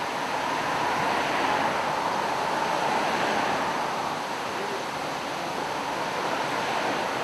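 Steady rush of flowing water, like a stream or small waterfall, an even hiss with no rhythm or pitch.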